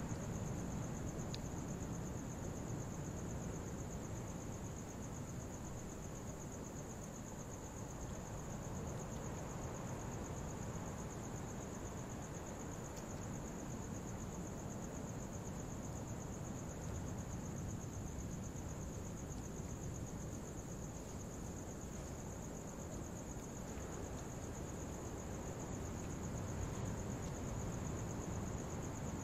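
Rural night ambience: a steady chorus of crickets trilling high and unbroken, over a low, even rumble.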